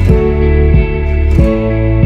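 Background music led by guitar, with chords or notes struck on a steady beat about every two-thirds of a second.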